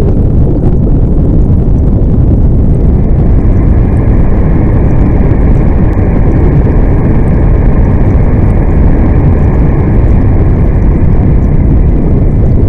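Loud, steady rush of water: a deep, even rumbling noise with no breaks.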